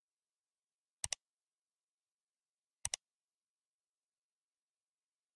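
Computer mouse click sound effect, a quick double click heard twice: about a second in and just before three seconds in, with total silence between.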